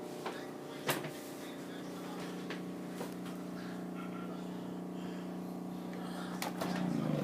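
Refrigerator giving off a steady, pitched hum with a few light clicks. Near the end the hum changes and begins to pulse. It is a sporadic fault noise that the owner wants diagnosed, and it seems to come from near the light at the back.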